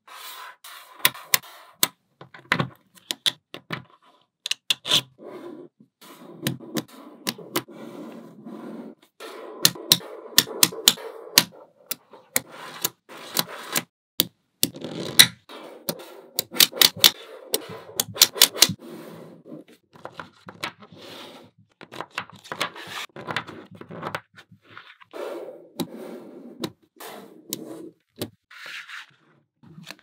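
Small neodymium magnetic balls clicking and clacking as blocks of them snap together and are pressed into place, in quick clusters of sharp clicks over a softer rattle of the balls shifting against each other.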